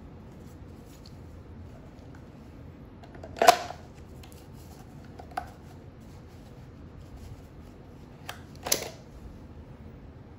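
Sharp clacks of a Beretta M9A3 with a weapon light going into and out of a Safariland 6034 SLS holster: a loud snap about a third of the way in, a lighter click a couple of seconds later, then a quick pair of clicks, the second one loud, as the pistol comes out. Faint rustling of gloved hands handling gun and holster in between.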